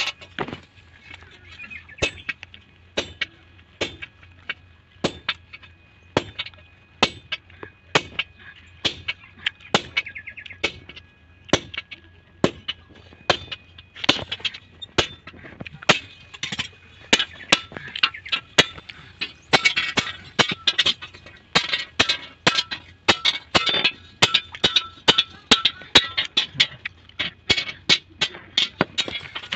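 Sledgehammer blows on a hot-cut chisel held against red-hot leaf-spring steel on an anvil, cutting the steel. The blows come about once a second at first, then quicken to two or three a second from about halfway through.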